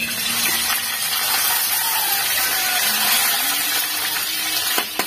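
Pieces of grouper (lapu-lapu) hitting hot cooking oil in a wok and sizzling loudly as they begin to fry, the sizzle starting suddenly and holding steady. Two sharp clicks near the end.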